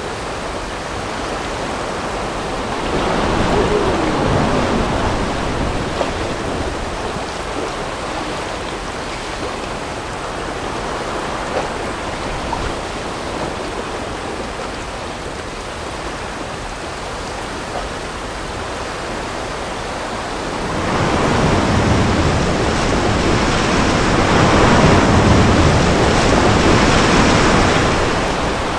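River rapids, whitewater rushing and churning around the rafts in a steady noise. It swells louder briefly a few seconds in, and again for most of the last eight seconds as the raft runs through rougher water.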